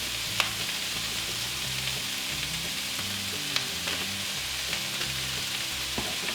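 Chopped onions, broccoli and carrots sizzling in hot oil in a frying pan, a steady frying hiss with a few sharp clicks.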